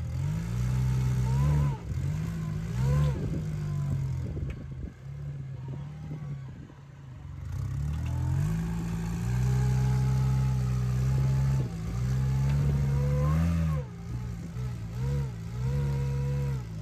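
Rock crawler buggy's engine revving in short blips while it climbs a boulder ledge, dropping back to a lower, quieter run for a few seconds in the middle before holding steady higher revs.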